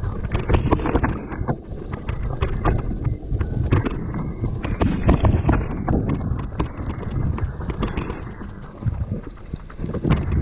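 Mountain bike being ridden down a rough trail: wind buffeting the microphone, with many quick rattles and knocks from the bike over the ground.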